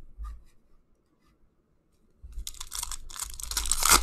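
A foil trading-card pack being torn open and crinkled in the hands, starting about halfway through and getting louder toward the end.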